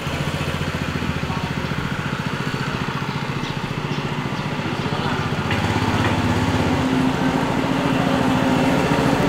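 Small motorcycle engine on a homemade three-wheeled motorcycle running under way, a steady rapid putter that grows louder and rises in pitch about halfway through as the machine accelerates toward the listener.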